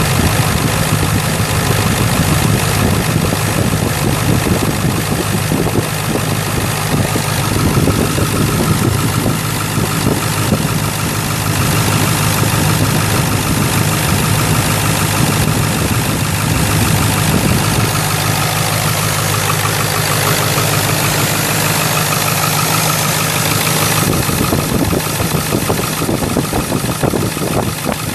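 2002 Ford F450's 7.3-litre V8 diesel engine running at a steady idle, heard up close with the hood open.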